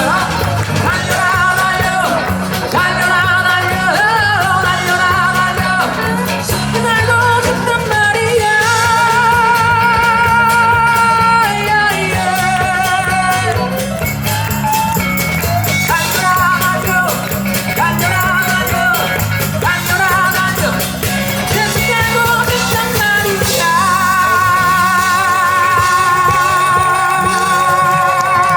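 A live rock-pop band playing, with guitar and a steady bass-and-drum beat under long, held vibrato notes from a voice.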